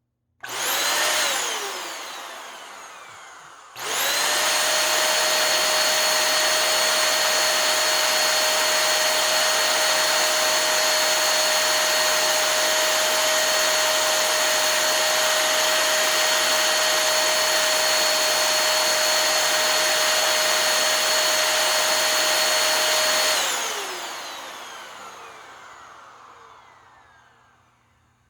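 Hoover Air Steerable vacuum motor run on its own: switched on briefly and let wind down, then switched on again and running at full speed with a steady whine for about twenty seconds before it is switched off and winds down to a stop. It runs with nothing odd in the sound, its commutator freshly polished.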